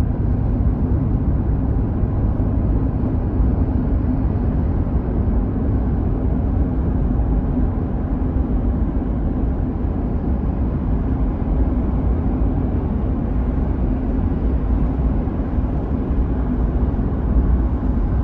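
Car driving along a road, heard from inside the cabin: a steady low rumble of tyres and engine that does not change.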